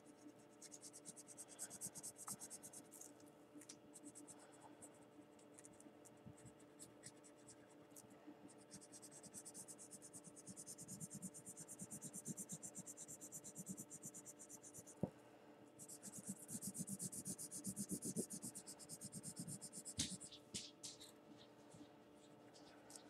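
Felt-tip marker scratching rapidly back and forth on paper while colouring in, in three long stretches with short pauses between them. A faint steady hum sits underneath, and there are two light taps, one before and one after the second stretch.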